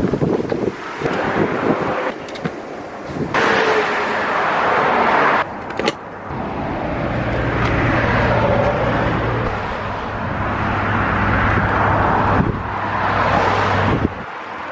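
Highway traffic going past close by: tyre and engine noise from cars and trucks swelling and fading, with a steady low engine hum through the second half. It breaks off abruptly several times.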